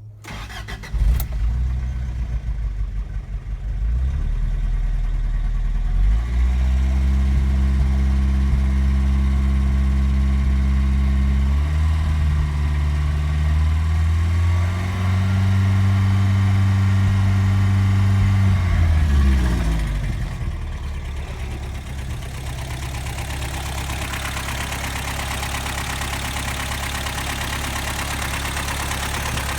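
Toyota 22RE four-cylinder engine starting about a second in, running at raised revs, then dropping back to a steady idle about two-thirds of the way through, with a ticking/knocking noise in its running. The timing chain, tensioner and guides have already been replaced, so the noise is not from a worn timing set.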